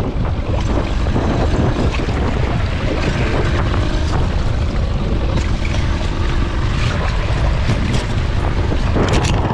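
Steady wind rumble on the microphone over a boat's motor running at trolling speed, with water against the hull. There are a few sharp knocks near the end.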